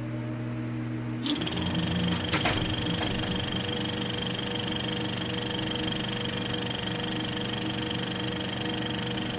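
Film projector running: a low hum, then from about a second in a steady, rapid mechanical clatter with an even whir, with a couple of clicks soon after.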